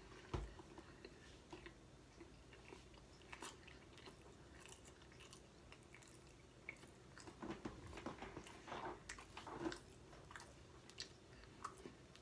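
A person chewing a big mouthful of cheese sandwich with the mouth closed: faint, scattered wet mouth clicks and smacks, busier from about seven to ten seconds in. A dull low thump comes just after the start.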